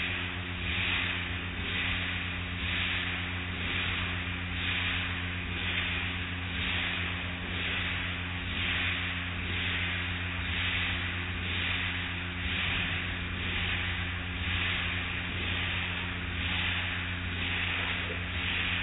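Automatic car wash at work: hanging cloth strips swishing across a car in a regular rhythm, about once a second, over water spray hiss and a steady low mechanical hum.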